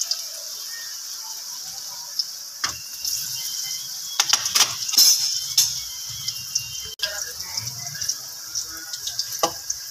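Potato fingers sizzling in hot oil in an aluminium kadai: a steady frying hiss with scattered crackles and pops. Near the end a slotted metal spoon stirs them, adding a few clicks against the pan.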